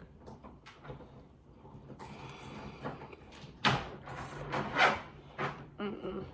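Close-mic eating sounds: chewing a mouthful of a KFC glazed-donut chicken sandwich, with small clicks and two louder, sharp mouth or handling noises in the middle.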